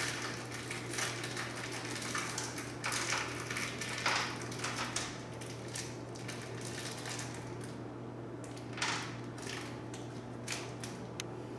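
Small parts being handled by hand: irregular rustles and light clicks, coming and going, over a steady low hum.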